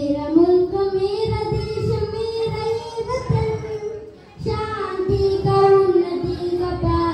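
A song with a high singing voice holding long, drawn-out notes over backing music; the voice breaks off briefly about four seconds in, then carries on.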